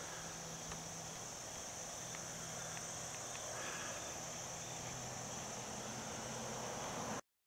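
Steady outdoor insect chorus, a continuous high-pitched chirring, with a faint low hum beneath it; it cuts off suddenly near the end.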